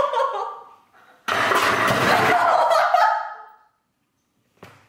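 Young women laughing hard: a laugh fading out at the start, then a loud, breathy burst of laughter about a second in that trails off, and then a sudden cut to dead silence.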